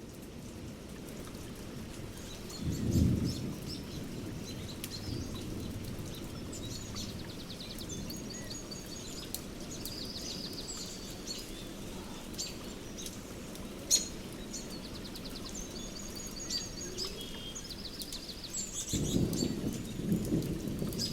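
Thunderstorm with steady rain and songbirds chirping and trilling, thunder rumbling about three seconds in and building again near the end.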